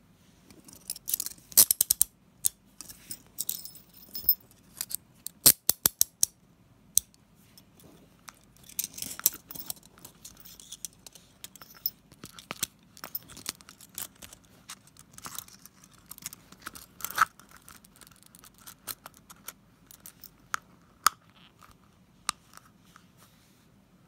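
Handcuffs ratcheting: runs of quick, evenly spaced metal clicks as the toothed swing arm is pushed through the lock, loudest in the first six seconds. After that, scattered clicks and rubbing as the handcuff case is handled.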